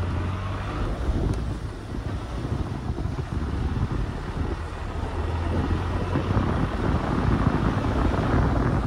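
First-generation Ford Figo petrol car driving over a rough dirt track: a steady low rumble of engine and tyres, with wind buffeting the microphone.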